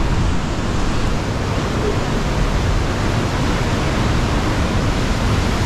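Steady rush of ocean surf breaking at the mouth of a sea cave, heard from inside the cave.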